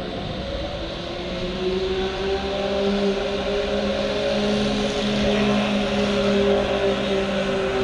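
Electric train running past with a steady motor whine over rolling noise, getting a little louder about a second and a half in.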